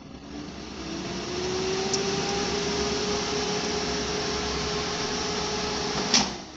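Imusa digital air fryer's fan motor starting up, its hum rising in pitch over the first couple of seconds, then a steady rush of blown air. Near the end a click as the basket drawer is pulled open, and the fan cuts out and winds down.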